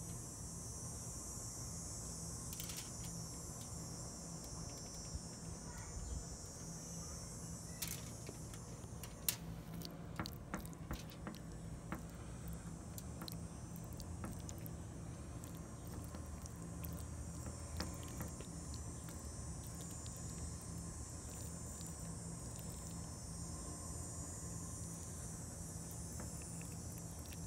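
A steady, high-pitched chorus of insects such as crickets, over a steady low hum. A scatter of light clicks comes about a third of the way in.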